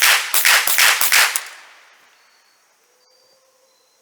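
A quick string of about five .22 rimfire rifle shots, fired rapidly, each crack ringing out and fading over about a second after the last.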